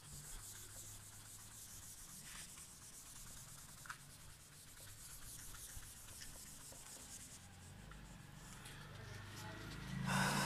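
Whiteboard eraser rubbing across a whiteboard, wiping off a marker drawing: a faint, steady scrubbing hiss. A brief louder noise comes near the end.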